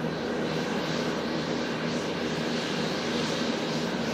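Boeing 747-8i's four GEnx turbofan engines running steadily while the jet moves on the ground: an even jet rush with a low steady hum under it.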